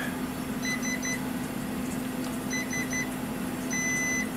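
Panasonic induction cooktop's control panel beeping as its buttons are pressed to switch on a burner under a pan of oil: two quick runs of three short beeps, then one longer beep near the end, over a steady low hum.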